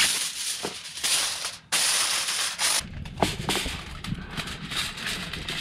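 Aluminium foil crinkling as a sheet is pulled from the roll and spread over a baking pan. About three seconds in it gives way to a wood fire crackling in a metal fire pit, with scattered sharp pops over a low rumble.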